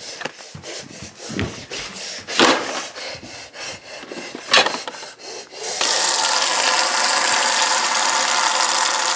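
Cardboard box being scraped and ripped open by hand, with irregular rasping and tearing strokes. About six seconds in, a loud steady rushing noise takes over.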